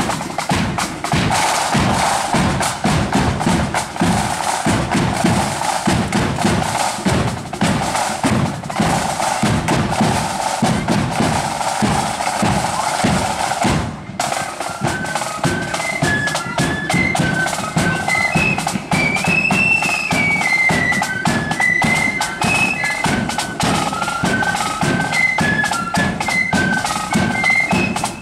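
Marching flute band on parade: snare and bass drums beating a march rhythm alone for the first half, then, after a brief break about halfway through, the flutes take up a tune over the drums.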